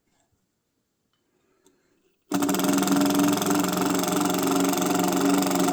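A power driver runs steadily for about four seconds, starting a couple of seconds in, driving a screw into a log rafter.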